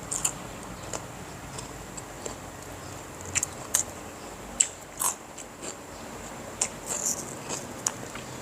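A person biting and chewing food close to the microphone: scattered short, crisp clicks and crunches, irregular, over low steady room noise.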